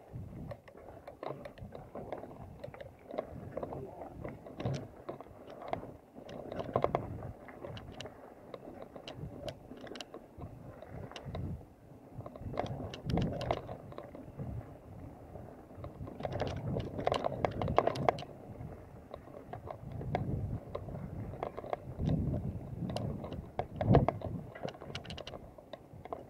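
Mountain bike riding over a rough dirt and leaf-covered forest trail: a rough rumble of tyres on the ground, swelling and fading, with irregular rattles and clacks from the bike's chain and frame jolting over bumps.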